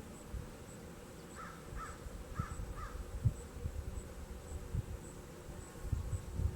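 A bird calling four times in quick succession, each call short and about half a second apart, over low, irregular bumps.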